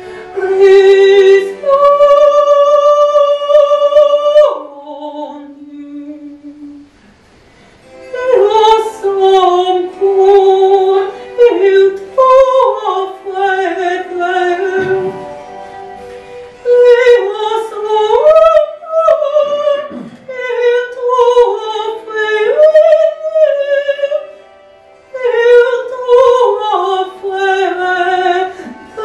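Countertenor singing classical song in a high voice with vibrato. He opens on long held notes, drops lower and softer, breaks off for a moment, then sings flowing phrases with a short breath break near the end.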